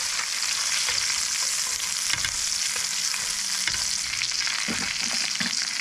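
Ribeye steak sizzling in butter in a stainless steel frying pan, a steady hiss with a few faint clicks.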